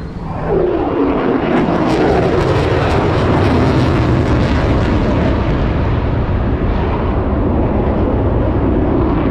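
F-35 Lightning II jet, its Pratt & Whitney F135 turbofan loud as the jet flies by. The noise swells about half a second in, its tone dropping over the first couple of seconds, with a crackle through the middle before it settles into a steady rumble.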